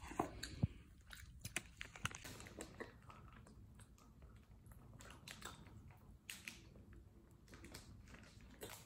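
Faint chewing and crunching of food, a scatter of small irregular clicks.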